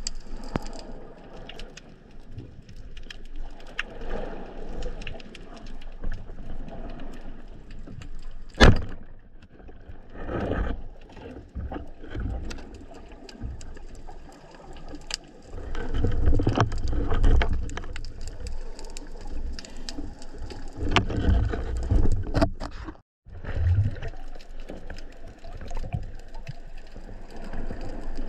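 Underwater sound from a spearfisher's camera: constant water noise with small clicks, a sharp knock about a third of the way in, and louder low water rumbling in the second half, cut off for a moment near the end of that.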